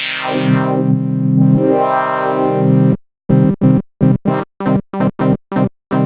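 Cherry Audio GX80 software synthesizer, an emulation of the Yamaha GX-1, holding a chord whose tone sweeps up and down as the tone-board sliders are moved. About three seconds in it breaks into short repeated chord stabs, roughly three a second.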